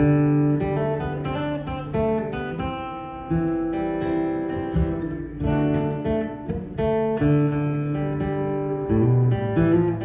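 Steel-string acoustic guitar played solo: an instrumental break of strummed chords with ringing notes, changing every second or so.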